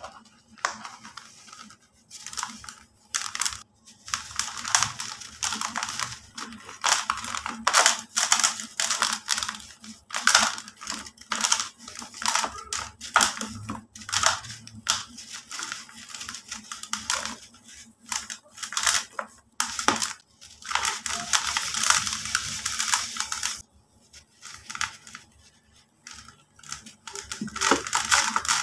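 Dry cement and concrete blocks crumbled and broken apart by hand in a plastic bucket: irregular dry, gritty crunches and crumbling, with dust and grit pouring and sifting down. A short pause about 24 s in, then the crumbling resumes.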